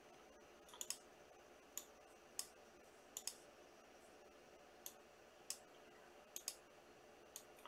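About a dozen sharp, light clicks at irregular intervals, several in quick pairs, against a quiet room.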